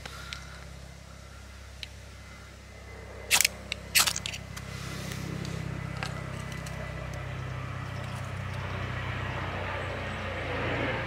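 Two quick scrapes of a ferro rod throwing sparks, a little over three seconds and four seconds in, lighting wax-and-cotton tinder in a walnut shell; the burning tinder's soft noise then grows louder. A steady low drone runs underneath.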